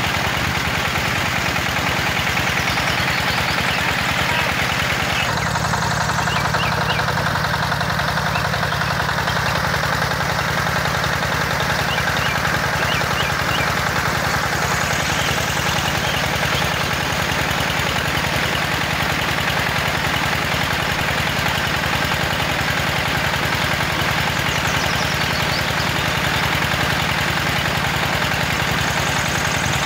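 Small petrol engine running steadily with a rapid, even beat, belt-driving a miniature water pump.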